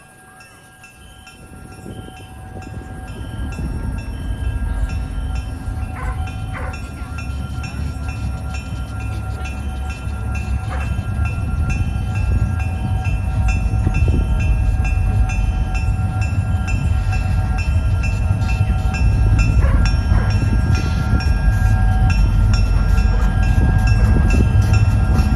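Sound of a model diesel locomotive: an engine rumble that builds over the first few seconds as the train approaches, then holds steady. A bell rings steadily over it.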